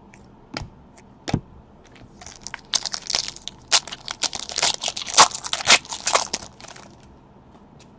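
Trading cards being handled by hand: two light clicks, then a few seconds of dense crackling and rustling as a stack of thick chromium cards is shuffled and slid against itself.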